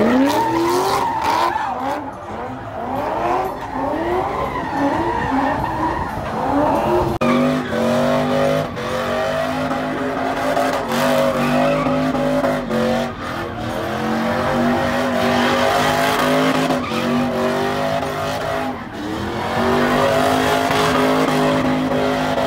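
LS V8 engines doing burnouts and donuts, with tyres spinning against the pavement. For the first several seconds the revs sweep up over and over in quick bursts. After a cut about seven seconds in, an engine is held at high, steady revs, dipping briefly every second or two.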